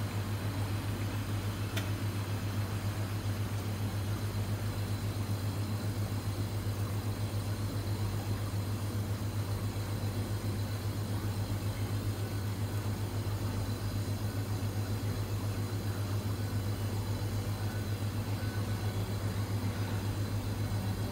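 A steady low machine hum, unchanging throughout, with a faint thin high whine above it and a single light click about two seconds in.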